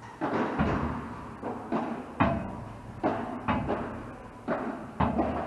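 Padel rally: the ball struck by rackets and bouncing off the court, a dozen or so sharp hollow knocks at irregular spacing, each dying away slowly.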